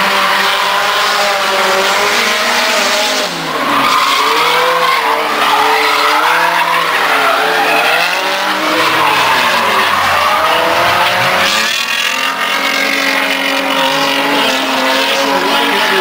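Drift cars sliding through a turn: engines revving up and down over and over as the throttle is worked, over the noise of tyres skidding and squealing. The engine note drops briefly about three seconds in, then climbs again.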